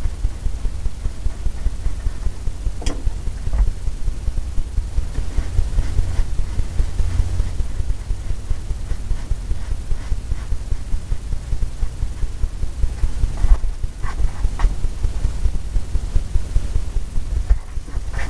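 Paintbrush dabbing and working oil paint on a stretched canvas on an easel, the canvas giving a rapid, continuous run of dull low thumps, several a second.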